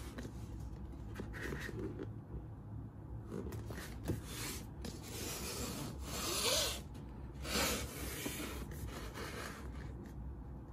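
Hands rubbing and sliding over a cardboard gift box and its paper sleeve as the box is turned, in irregular bursts of scraping rustle, the loudest two a little past six and seven and a half seconds in.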